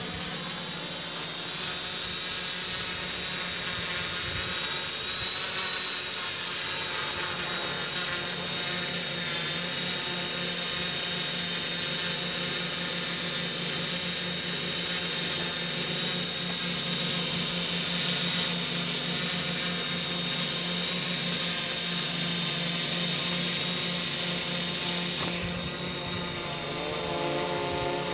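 F450 quadcopter's four motors and propellers running with a steady, drill-like whine in flight. Near the end the sound changes abruptly, the hiss falling away and the pitch shifting as the drone comes down low over the ground.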